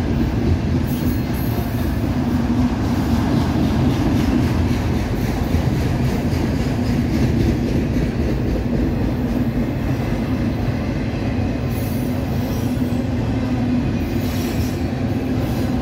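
Autorack freight cars of a CSX train rolling steadily past: a continuous rumble of steel wheels on the rails.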